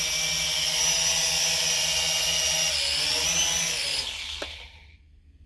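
Small toy quadcopter's electric motors and propellers buzzing with a steady high whine that shifts in pitch about three seconds in, then spin down and stop about four seconds in, followed by a single light tick.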